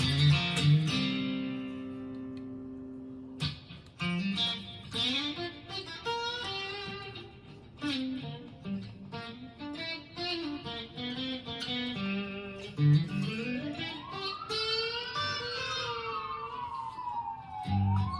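Custom 24 electric guitar played with the pickup selector in position 2: single notes and chords. Near the end, one note is bent smoothly up and then slowly back down.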